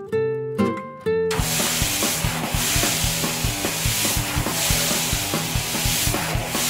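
Plucked guitar music, then about a second in a garden hose starts spraying water: a loud, steady hiss that lasts to the end, with the music carrying on faintly underneath.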